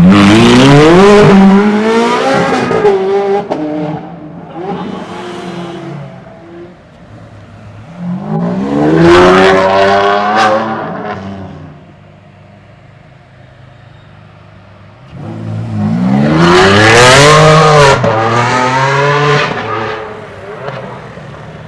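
A supercar engine accelerating hard in three loud bursts, the pitch climbing steeply in each. Between the bursts it drops back to a quieter, steady engine hum.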